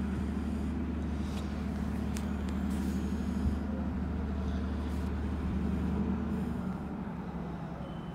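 Diesel locomotive of an LIRR work train running with a steady low rumble, easing off slightly near the end.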